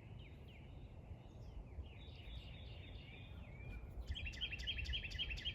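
Small birds calling: repeated short arcing chirps, then a quick trill of about seven or eight notes a second from about four seconds in, over a faint low rumble.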